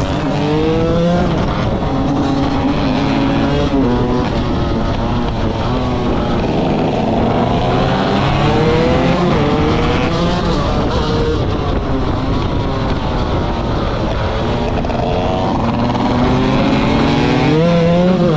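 KTM 125 motorcycle engine at full throttle, its pitch climbing and dropping back again and again.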